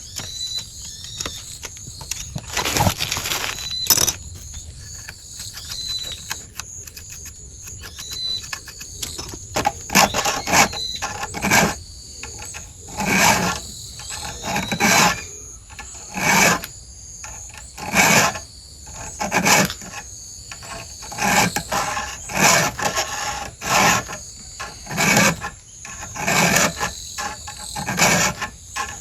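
Round chainsaw file rasping across the cutter teeth of a saw chain being sharpened. A few scattered strokes at first, then steady, even strokes about one every second and a half from about a third of the way in.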